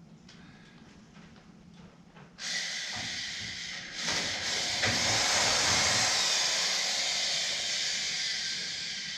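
A steady hiss that starts suddenly about two and a half seconds in, grows louder a second and a half later and fades slowly near the end.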